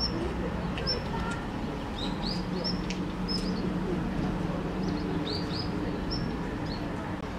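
Small birds chirping: short high chirps, several a second at times, over a low steady background murmur.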